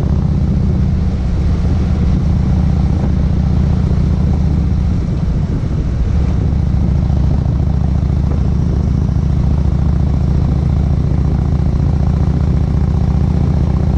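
Cruiser motorcycle engine running steadily at highway speed, a low drone with rushing wind and road noise over it.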